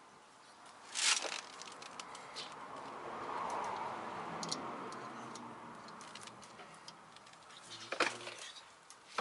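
Light metallic clicks and clinks of tools and brake parts being handled during work on a parking-brake shoe assembly: one sharp click about a second in and several near the end. A hiss swells and fades in between.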